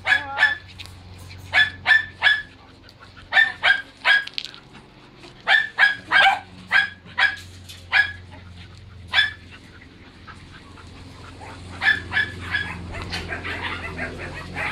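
Several kennelled dogs barking in short, sharp barks, in bursts. The barking pauses about ten seconds in, then starts up again more busily near the end.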